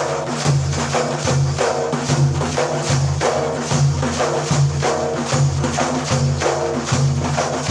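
Instrumental break in Iraqi ataba folk accompaniment: percussion beating a steady rhythm over sustained low notes, with no voice.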